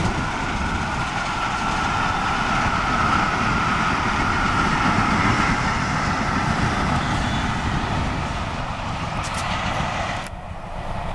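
A steam-hauled passenger train, behind Bulleid Pacific 34067 Tangmere, rolling past: a steady rumble of wheels on rail with a high whine running through it. About ten seconds in, the higher sound drops away suddenly and the train sounds more distant.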